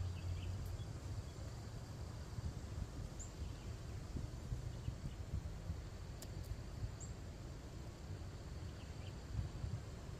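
Outdoor ambience: a steady low rumble, like wind on the microphone, with two faint short bird chirps about three and seven seconds in.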